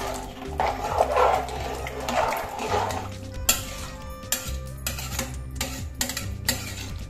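A steel ladle stirring rice, vegetables and water in an aluminium pressure cooker: watery swishing at first, then from about halfway a run of clinks and scrapes of the ladle against the pot.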